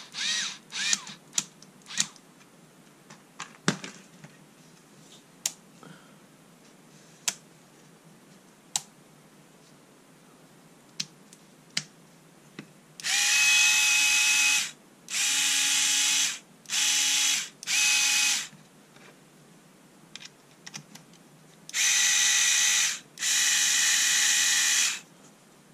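Small clicks and taps of the plastic casing being handled. Then the Panasonic EY503 cordless screwdriver's motor runs with no load in six short bursts at a steady pitch: four close together, a pause, then two more.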